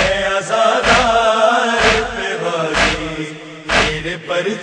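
A male voice chanting an Urdu religious lament in long held, wavering notes, over a deep beat that lands about once a second, five times; the voice drops away near the end.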